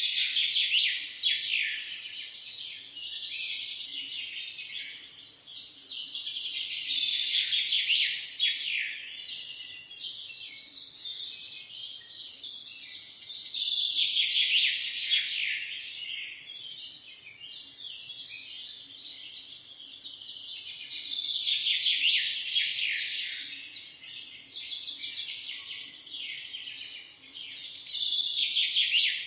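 Many birds chirping together in a dense, high chorus of quick notes, swelling louder about every seven seconds.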